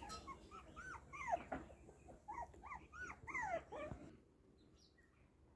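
Young puppies whimpering: a string of short high whines, each rising and falling, about a dozen of them, stopping about four seconds in.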